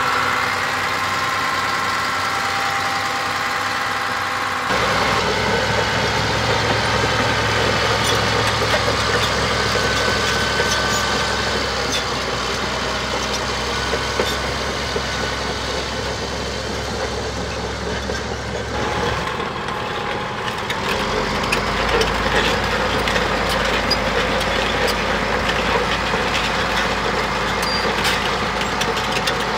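Caterpillar D6H crawler dozer's six-cylinder diesel engine running steadily. The sound changes abruptly about five seconds in and again around twenty seconds in, as the listening position shifts from close to the open engine bay to outside the machine.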